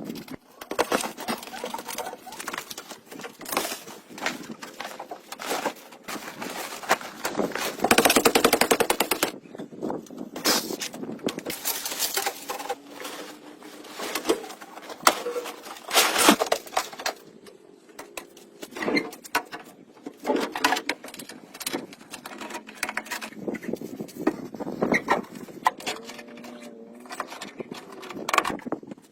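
Work with tools: irregular sharp knocks and clatter, with runs of rapid taps.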